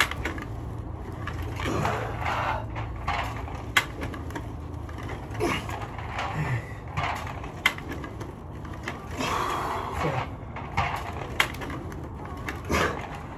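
A person exercising hard: heavy breathing swelling every second or two, with a sharp knock against the floor or equipment about every four seconds.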